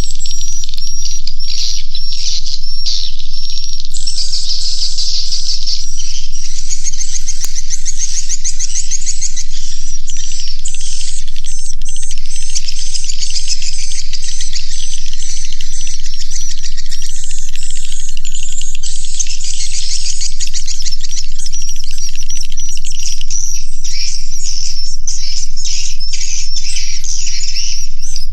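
A colony of edible-nest swiftlets twittering inside a swiftlet house: a dense, unbroken chorus of high, short, repeated chirps from many birds at once, over a steady low hum.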